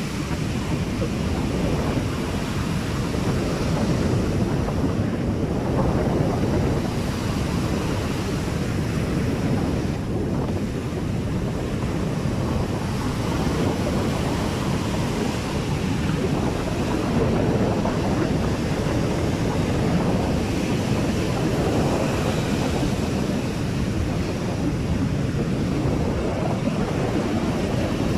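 Ocean surf breaking and washing on a sandy beach as a steady rush that swells and eases every few seconds, with wind buffeting the microphone.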